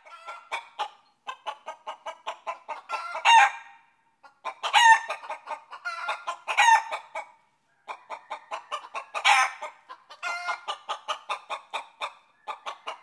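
Hen cackling: runs of quick clucks, each building to a louder squawk, repeated about five times.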